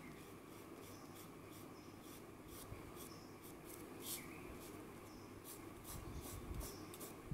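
Oil pastel rubbed across drawing paper in short, repeated strokes: a faint, quick scratching.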